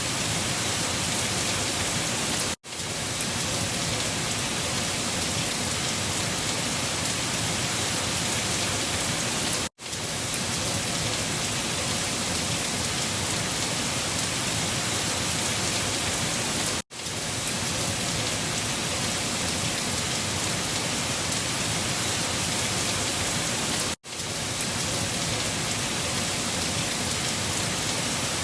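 Steady rain, a dense even hiss of drops on a surface. The sound cuts out abruptly and fades back in four times, about every seven seconds.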